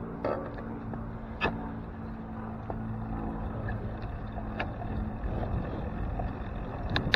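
Low rumble of a bicycle moving off from a stop on city pavement, picked up by a handlebar-mounted camera, with a few sharp clicks and rattles from the bike and mount. A steady hum sits under it at first, and the rumble grows louder near the end as the bike gathers speed.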